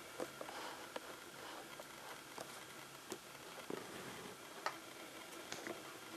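Small screwdriver driving screws back into the metal frame of a Lenovo IdeaPad Y470's LCD panel: faint, scattered clicks and ticks of the bit and the screws, with a few sharper taps.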